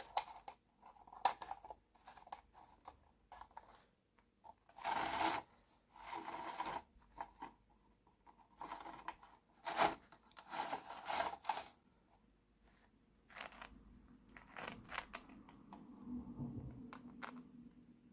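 Small plastic toy kitchen pieces and their packaging being handled: irregular short rustles and scrapes with sharp light clicks.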